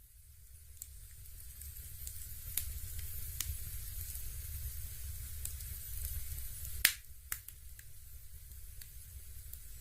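Fireplace crackle: scattered sharp pops over a steady low rumble and faint hiss, the loudest pop a little before the seventh second.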